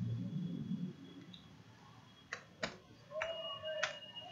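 Three faint, sharp clicks of a computer keyboard or mouse being used: two close together about two and a half seconds in, a third about a second later. A faint low rumble sits under the first second.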